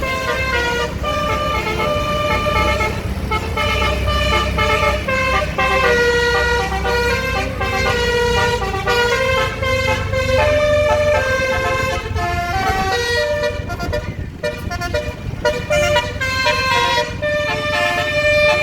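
Bus telolet basuri horn, a multi-tone musical horn, playing a tune of held notes that change every half second or so, several sounding at once, over a steady low engine rumble.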